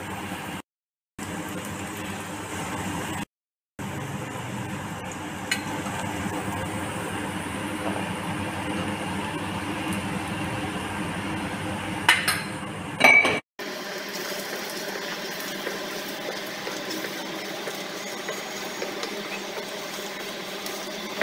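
Onions and cashews frying in oil in an aluminium kadhai with a steady sizzle, broken by a couple of brief dropouts near the start. A spatula clinks sharply against the pan a few times about two-thirds of the way in, and stirring follows.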